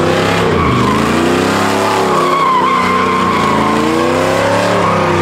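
Pickup truck doing donuts: its engine revs up and down several times while the spinning tires squeal steadily as they slide.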